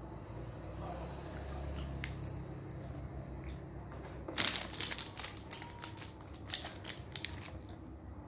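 Crisp crunching and crackling close to the microphone: a quick run of sharp crackles starting a little past four seconds in and lasting about three seconds, over quiet room sound.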